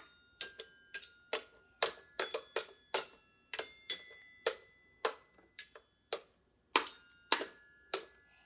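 Toy xylophone's metal bars struck one at a time with a mallet by a toddler: about twenty uneven single notes, roughly two or three a second, each ringing briefly. The tapping stops shortly before the end.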